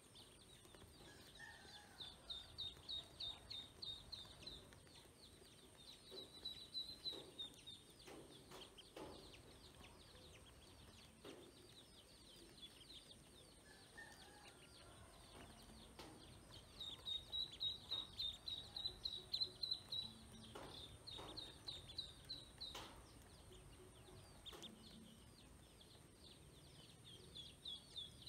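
Ducklings peeping: quick runs of short, high calls, several a second, with pauses between the runs. A few light clicks in between.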